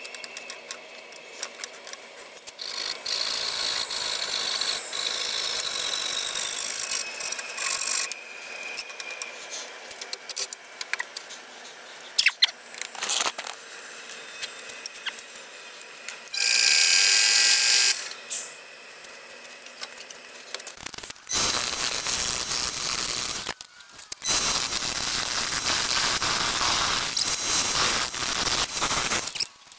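Wood lathe turning a gnarled root: from about 21 seconds in, a steady harsh hiss of the gouge cutting into the spinning, uneven wood, dropping out briefly once. Before that come knocks and clicks as the root is fitted between the lathe centres, with two spells of high mechanical whine.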